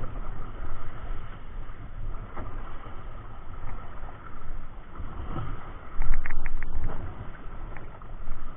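Wind rushing over the microphone and choppy sea washing against a boat's hull, a steady low rumbling noise with a louder gust about six seconds in.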